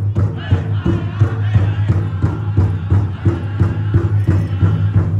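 Powwow drum group: a big drum struck in a steady fast beat, about four strokes a second, with singers' high-pitched voices wavering above it.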